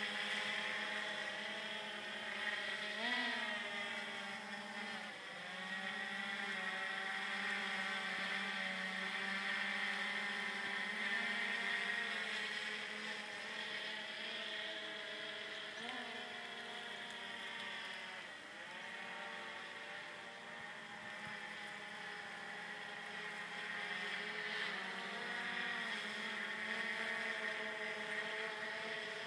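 Autel X-Star Premium quadcopter's propellers and motors buzzing in flight overhead, a steady whine whose pitch swoops up and down several times as the drone changes speed and manoeuvres.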